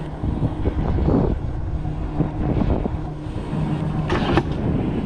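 Mountain coaster sled being hauled up the uphill track. The wheels and lift give a steady low rumbling hum, with a short rattle about four seconds in.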